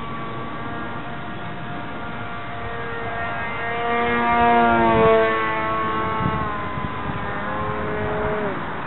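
Electric motor and propeller of a scratchbuilt foam RC plane whining in flight as it passes overhead. The tone is loudest about four to five seconds in, then drops in pitch near the end as the plane moves away.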